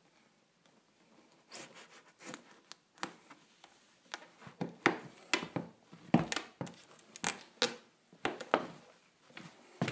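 Worn Nike Air Max 2013 sneaker pressed and rocked under a foot's weight on a wooden floor: its air-cushion sole gives irregular sharp crackles and squeaks. They start about a second and a half in and come thickest in the middle.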